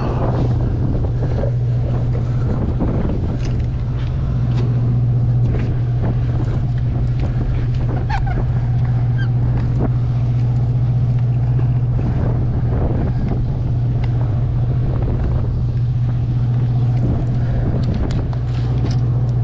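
A boat engine drones steadily underneath, with scattered light clicks and knocks from a big conventional fishing reel as it is cranked against a hooked fish.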